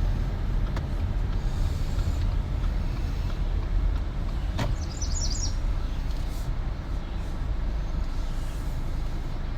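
Car engine running with a steady low rumble as the car is backed up to line up with a marker post, with a single sharp click about halfway through.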